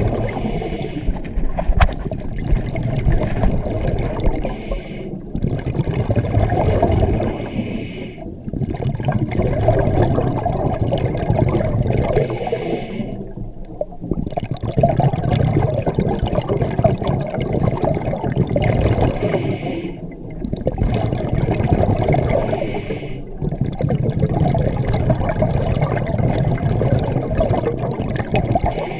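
A scuba diver breathing through a regulator underwater. Each exhale sends out a long, loud gush of rumbling, gurgling bubbles, and short breaks with a brief hiss of inhaled air come between them every few seconds, about five or six breaths in all. The sound is muffled through the GoPro's waterproof housing.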